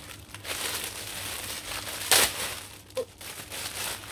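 Clear plastic packaging bag crinkling and rustling as a shirt is unwrapped from it, with one louder crackle about two seconds in.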